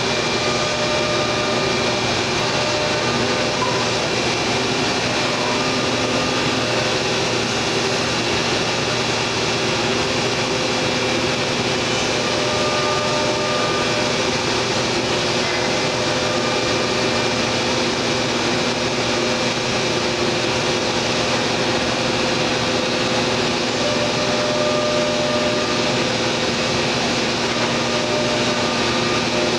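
Thermwood C-40 CNC router running: a steady, even machine noise at constant loudness, with a few faint tones that shift slightly and come and go.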